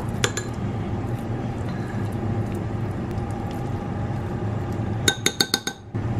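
Metal spoon clinking against ceramic bowls while scooping tuna: one clink near the start, then a quick run of about six ringing clinks about five seconds in, over a steady low hum.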